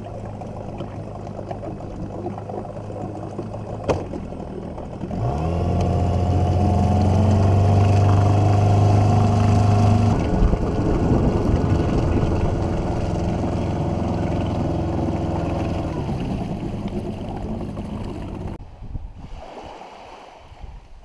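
Dinghy outboard motor idling, then throttled up about five seconds in, its pitch rising as it runs loud at speed. It eases back about halfway and fades out near the end.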